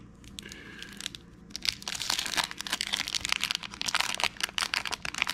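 Wrapper of a 1992-93 Topps Basketball card pack being torn open by hand, crinkling and crackling. The crinkling starts about a second and a half in and runs on as a dense, rapid crackle.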